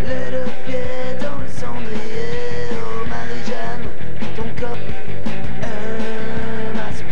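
Rock song played by a band, with drums keeping a steady beat under a wavering melody line.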